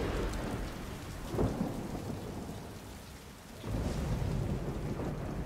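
Rain pouring down with rumbling thunder. The thunder dips after about three seconds and swells up again about half a second later.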